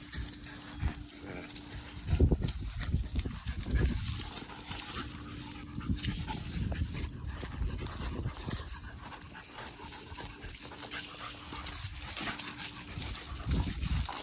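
American Pit Bull Terrier puppy panting hard while tussling, with irregular thumps and rustles that are loudest about two seconds in and again near the end.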